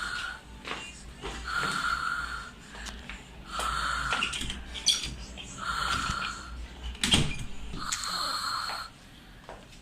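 A person snoring loudly and steadily, a rasping, slightly whistling snore about every two seconds, five in all. A sharp click comes about five seconds in and a louder knock about seven seconds in.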